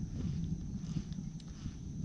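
Wind buffeting the microphone: an irregular low rumble with small jabs, over a rippled lake surface.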